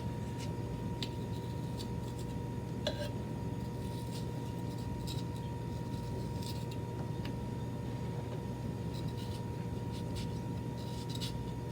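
Faint, scattered clicks and taps of a knife cutting and handling vegetables for garnish, over a steady electrical hum with a faint high tone.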